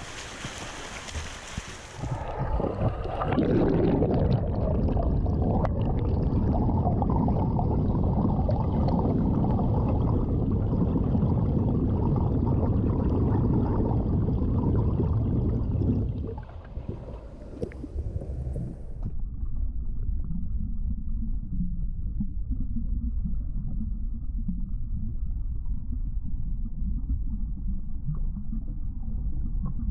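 Splashing of front-crawl swimming strokes for the first couple of seconds. It gives way to a loud, muffled rumbling and sloshing of water around a camera held underwater, which grows duller still about two-thirds of the way through.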